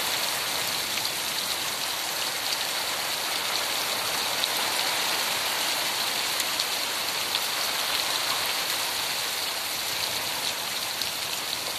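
Heavy rain falling steadily on wet bare earth: a dense, even hiss with scattered sharp ticks of single drops.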